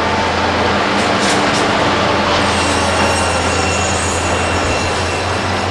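Hydraulic crawler excavator at work in rubble: a steady engine drone under dense mechanical noise, with thin high-pitched metallic squealing joining in about halfway through.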